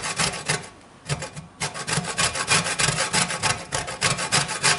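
A lemon rubbed against a stainless steel box grater to zest it: a rhythmic rasping scrape of quick back-and-forth strokes, with a short pause about a second in.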